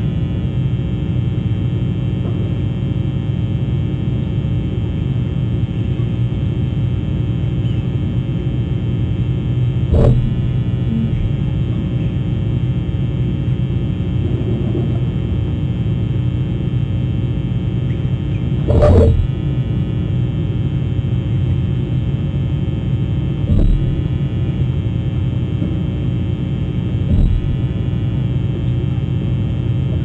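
Steady electrical hum and low rumble with a buzz of many evenly spaced steady tones. Sharp clicks break it about ten seconds in and again around nineteen seconds, with two fainter ones near the end.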